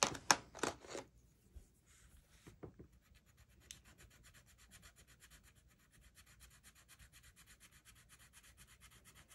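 Mondo Llama colored pencil scribbling back and forth on paper to fill a swatch, in fast, even strokes about eight a second. A few louder scrapes and taps come in the first second.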